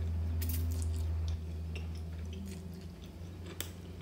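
Close-up eating sounds of a person chewing a mouthful of stir-fried noodles, with a few sharp clicks of a metal fork against the plate, over a low steady hum that gets quieter about a second and a half in.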